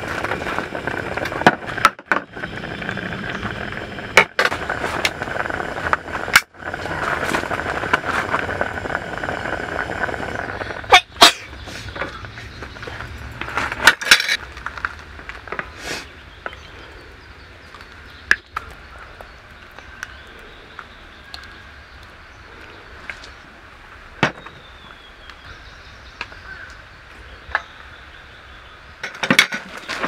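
Steady rushing hiss of a Dongsung gas camping stove burning under a boiling pot of soup, which stops about eleven seconds in. After that come scattered sharp clinks of a ladle against the metal pot and the bowls as the soup is served.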